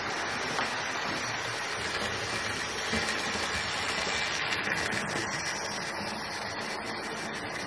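Hornby OO gauge GWR Dean Single model locomotive with its coaches running on the layout's track: the steady whirr of the small electric motor and the running of the wheels over the rails.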